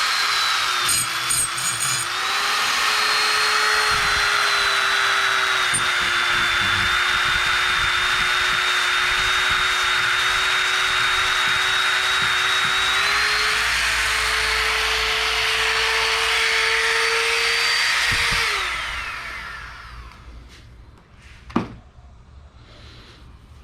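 Handheld power tool, drill-like, running at high speed with a steady whine whose pitch dips and rises slightly as it meets load, then spinning down and stopping near the end; a single sharp click follows shortly after.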